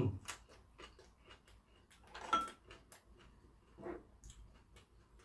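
Close chewing and wet mouth sounds of a person eating, made up of many small clicks and smacks. A bit over two seconds in, a spoon clinks against a ceramic bowl with a brief ring.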